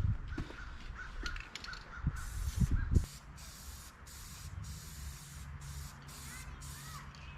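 Aerosol spray-paint can spraying rust-stop paint in short, evenly spaced bursts, about two a second, starting about two seconds in, after a few knocks and handling sounds. A bird calls faintly a few times near the end.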